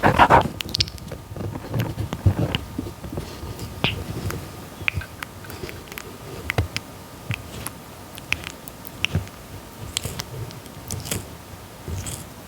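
Red-footed tortoise biting and chewing papaya: irregular wet bites and small clicks of its beak, with the loudest bite right at the start.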